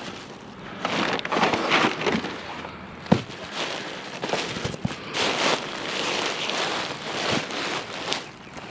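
Rummaging through a curbside junk pile by hand: rustling, crackling handling noise with a sharp knock about three seconds in and a few lighter clicks.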